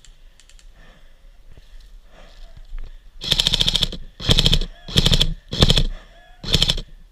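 Airsoft rifle firing about five short full-auto bursts in quick succession, starting about three seconds in, each a rapid string of evenly spaced shots.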